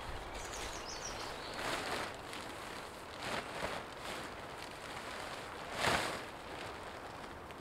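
Polyester DD 3x3 tarp being unfurled and shaken out, the fabric rustling and flapping in a few separate swishes, the loudest about six seconds in.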